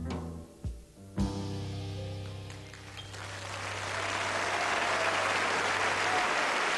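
Jazz trio of piano, double bass and drums playing its closing notes, then striking a final chord about a second in that rings on with a held low bass note. Audience applause swells over it and takes over.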